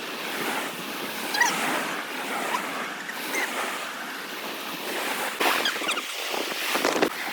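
Sea waves washing onto a beach, with wind blowing on the microphone and a few louder surges near the end.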